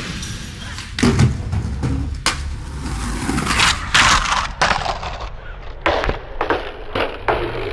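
Skateboard on concrete: wheels rolling, a scraping grind along a ledge around four seconds in, then several sharp clacks as the board hits the ground.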